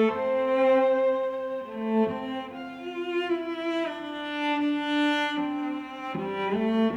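Background music of bowed strings, violin and cello, playing slow sustained notes.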